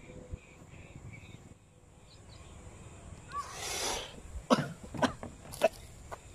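A short cough about halfway through, then a few sharp knocks as a melted plastic jar is set down on a plastic stool, with faint bird chirps.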